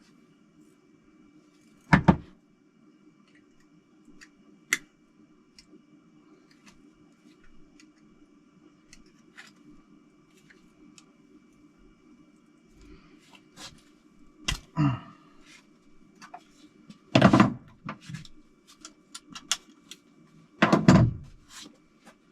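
Tools and engine parts being handled: scattered light clicks and clinks with heavier knocks about two seconds in and twice near the end, over a steady low hum.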